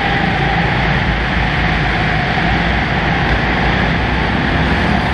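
Go-kart engines running in a steady, continuous drone as karts lap the track.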